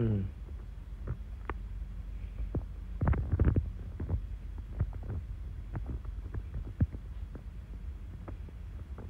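Handling noise on a handheld phone's microphone while it is carried and panned: soft irregular thumps and knocks over a low steady hum, with a louder cluster of thumps about three seconds in.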